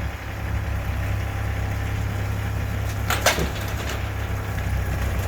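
Hitachi EX40 mini excavator's diesel engine running steadily. Two sharp knocks come close together a little over three seconds in.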